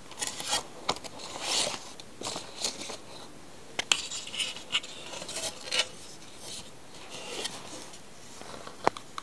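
Clear plastic wrapping crinkling and rustling in irregular bursts as a bagged magazine is handled, then a few sharp clicks near the end.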